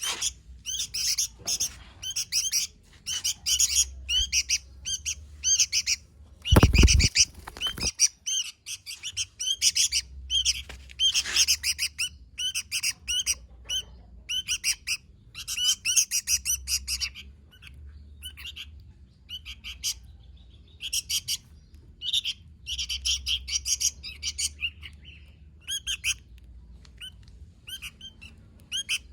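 Sooty-headed bulbul (kutilang) singing busily: short, bright chattering phrases repeated in quick succession with brief gaps. About seven seconds in there is a loud, low thump lasting about a second.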